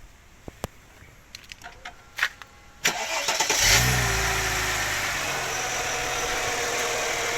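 Mercedes-Benz CLK320's 3.2-litre V6 being started: a few light clicks, then about three seconds in the engine cranks and catches, revs briefly and settles into a steady idle.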